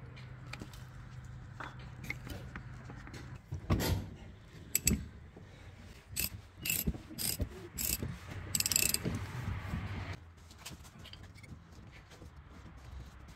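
Ratchet wrench with a 36 mm socket turning the fuel filter housing cap of an Opel Insignia 1.6 CDTI: sharp metallic clicks and clacks about half a second apart, ending in a quick run of ratchet clicking about two-thirds of the way in.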